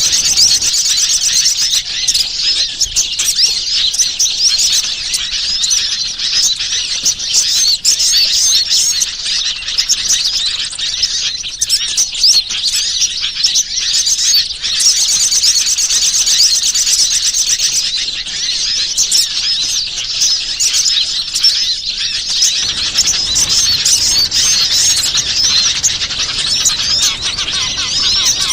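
Bird-lure recording of many small wild birds chirping and twittering at once: a dense, unbroken mass of rapid high-pitched calls.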